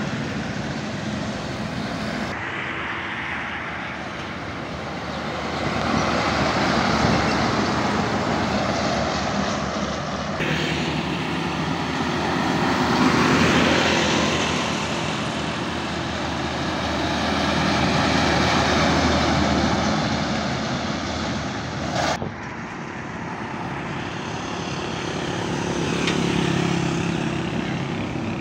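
Highway traffic: heavy trucks and motorcycles driving past, the engine and road noise swelling and fading as each one goes by. There are a few sudden breaks in the sound.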